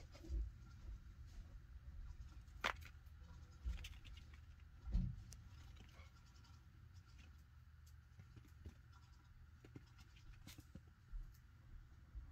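Faint scratching and scattered light clicks of baby chinchillas moving about in a plastic toy sleigh, with a soft thump about five seconds in.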